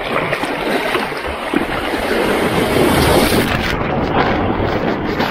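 Rushing water and whitewash washing over the nose of a surfboard as it catches a wave, growing louder over the first couple of seconds, with wind buffeting the board-mounted camera's microphone.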